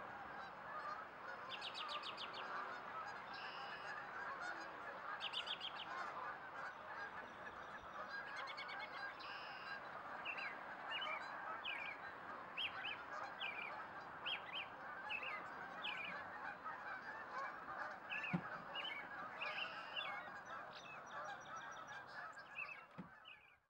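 A large flock of geese calling together, a dense continuous chorus of overlapping honks with many single calls standing out above it.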